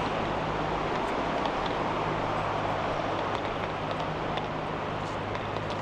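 A steady rushing background noise with a faint low hum beneath it, unchanging throughout.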